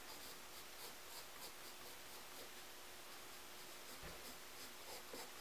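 Pencil sketching on drawing paper: faint, short scratching strokes repeated every fraction of a second, with a soft low thump about four seconds in.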